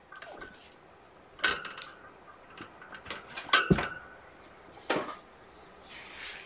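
Scattered knocks and clatter of small objects being handled and moved about, loudest just over halfway through, with a brief rustle near the end.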